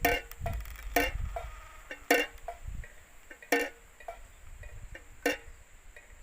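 PVC-pipe windmill bird scarer (klencer) clacking: five sharp, ringing knocks at uneven gaps of one to two seconds, with lighter ticks between them. A low rumble runs under the first two seconds.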